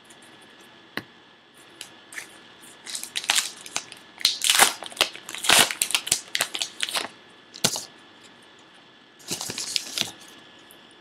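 A baseball card pack wrapper being torn open and crinkled by hand: a run of sharp rustling, tearing bursts from about three to seven seconds in, a couple of single clicks, and more crinkling near the end.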